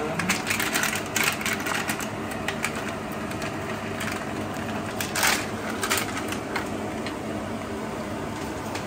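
Small plastic packet crinkling in the hands as it is squeezed and crumpled: a quick run of crackles in the first two seconds and another about five seconds in, over a steady low hum.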